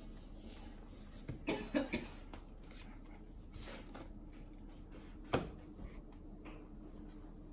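A few short baby grunts about a second and a half in, over quiet room tone, then a single sharp tap about five seconds in.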